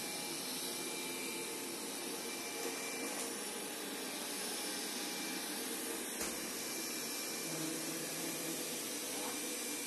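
Roborock S6 MaxV robot vacuum running steadily, its suction motor and brushes working across a rug scattered with dry cat food kibble. A single small knock about six seconds in.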